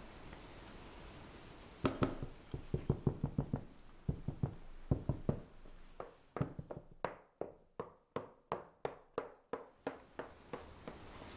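A run of sharp knocks on a metal sheet pan filled with cake batter. Heavier, uneven knocks start about two seconds in, then settle into a steady series of about three crisp taps a second before stopping near the end.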